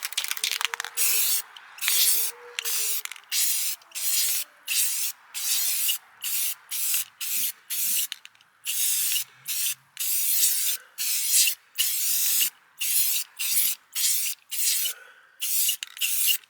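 Aerosol spray-paint can spraying a coat of paint onto a vehicle wheel in short, repeated bursts, a little over one a second.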